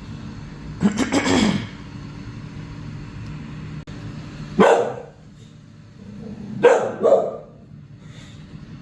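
Micro bully dog barking in three short bursts, about a second in, near the middle and again a couple of seconds later, at a robot vacuum-mop. A low steady hum runs underneath.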